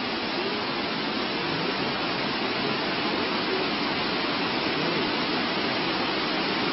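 A steady, even hiss with no distinct events in it.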